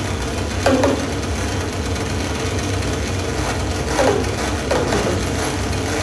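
Experimental noise music: a dense, steady texture of low rumble and hiss, with short scraping, clattering strokes about a second in and again around four and five seconds.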